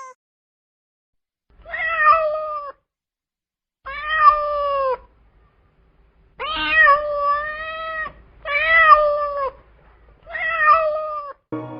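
Domestic cat meowing, five drawn-out meows with short pauses between them, each rising slightly and then falling in pitch.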